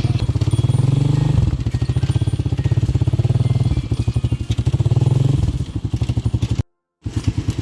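Motorcycle engine running while riding, its pitch rising and falling as it speeds up and eases off. The sound cuts out completely for a moment near the end, then resumes.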